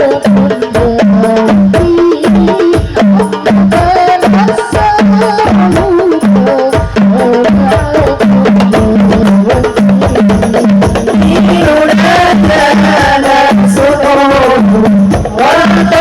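Hadroh music: rebana frame drums play a fast, dense rhythm over a repeating low drum note, under a melody. A voice starts singing about twelve seconds in.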